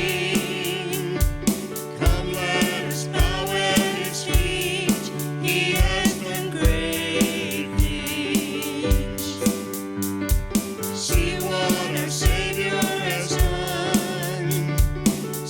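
Gospel-style church worship band music with a steady drum beat under sustained pitched notes.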